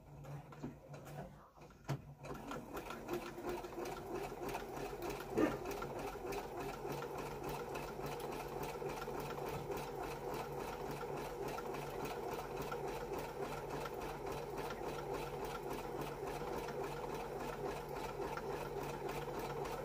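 Domestic electric sewing machine running steadily, sewing a zigzag stitch through layered fabric; it picks up speed about two seconds in, with one brief sharp click about five seconds in.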